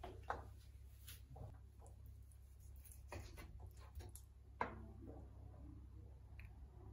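Faint clicks and taps of metal tongs and a knife against a plastic cutting board as a block of boiled pork belly is handled and sliced, with two sharper knocks, one just after the start and one about two-thirds through.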